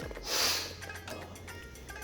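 Soft background music, with one short breathy hiss about half a second in.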